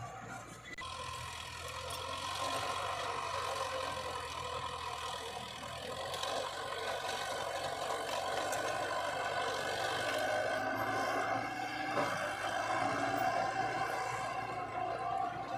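A heavy construction vehicle's engine running steadily under load, getting louder about a second in.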